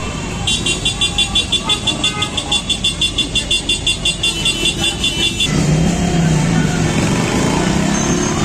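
Motorcycles and cars in a crowded street, with a rapid high-pitched beeping at about five beeps a second for the first five seconds or so, giving way to a lower steady drone.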